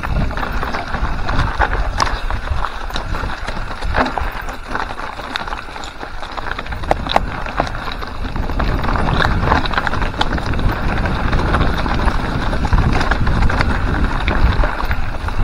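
Mountain bike descending a rocky trail: tyres crunching over loose stones with many sharp clicks and rattles from the bike, and wind buffeting the camera microphone.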